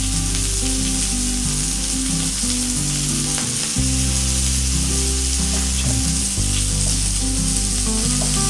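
Semolina-coated stuffed pomfret shallow-frying in a pan, the oil sizzling steadily, under low held tones that change pitch in steps.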